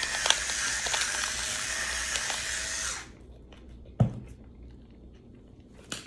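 Handheld kitchen torch burning with a steady, loud hiss as it toasts a piece of bread, cutting off about three seconds in. A single thump follows about a second later.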